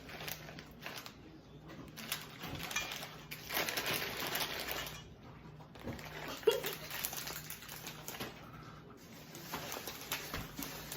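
Small dry snack pieces rattling and pattering as they are shaken out of a crinkling package into a bowl, in uneven spurts with one longer spell of rustling partway through.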